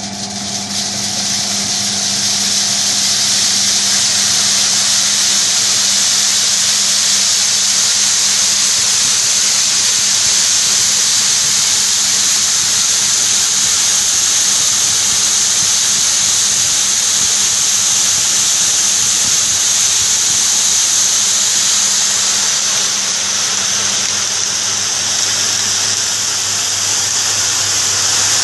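Berényi S-800 seed cleaning machine running with barley: a steady hiss and rattle of grain shaking across its perforated sieves over a constant low machine hum, building up over the first few seconds.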